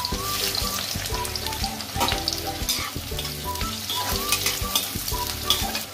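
Sliced onions sizzling in hot oil in a metal kadai, stirred with a spoon that scrapes and clicks against the pan.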